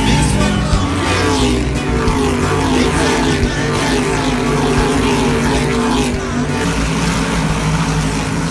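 NASCAR Whelen Modified race cars passing close by at speed, their V8 engines running hard, with the pitch dropping as each car goes by.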